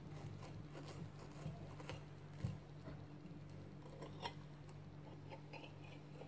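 Knife cutting through a toasted ham-and-cheese sandwich: the crisp toast crackles as the blade saws, with faint scrapes and taps of the blade on the plate, the sharpest about two and a half seconds in and again a little after four seconds. A steady low hum runs underneath.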